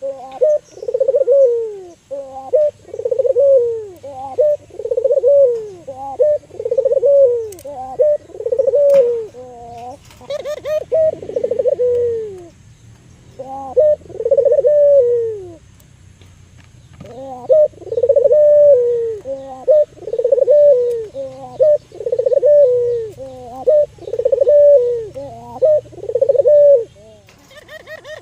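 Albino Barbary dove (local puter dove) cooing over and over, each coo a rolling call that rises and falls, about one a second, with two short breaks in the middle.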